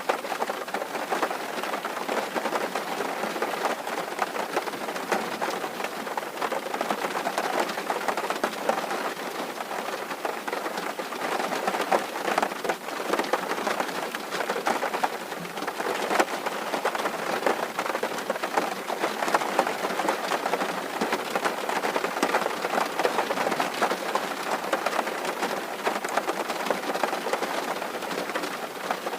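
Steady rain falling on a tin roof: a dense, even mass of small drop strikes.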